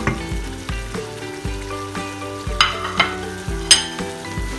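Beef pieces sizzling in hot oil in a pressure cooker as a wooden spoon stirs them, with a few sharp knocks, the loudest near the end. Background music with held notes plays over it.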